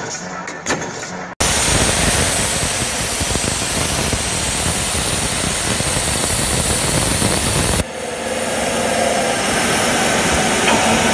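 Metal-bending press clicking as it works a steel strip. About a second and a half in, it is cut off abruptly by a loud, steady hissing noise of an end mill cutting a thick steel ring. The noise turns a little duller, with a faint steady tone, about eight seconds in.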